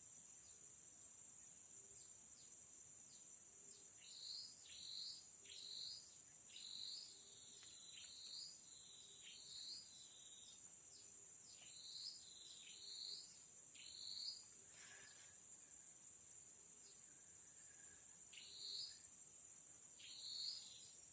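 Faint tropical forest ambience: a steady high-pitched insect drone, with runs of short, high calls repeated about every half second to a second that begin about four seconds in, pause, and return near the end.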